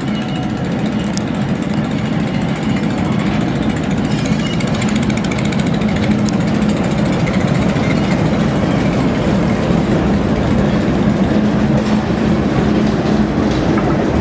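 Diesel shunting locomotive running as it draws a train of coaches and vans past, a steady engine drone with a strong low hum that grows a little louder as it comes by.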